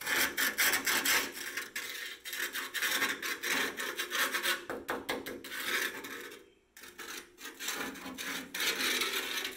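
Screwdriver tip scraping and poking along the rusty steel window sill of a 1973 Volkswagen bus, in irregular rasping strokes with a short pause about two-thirds of the way through. The sill is being probed for rust rot and proves pretty solid.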